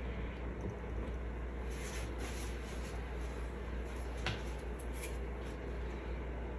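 Steady low hum and hiss of room background noise, with a few faint light clicks about two seconds in and a single sharper tick a little after four seconds.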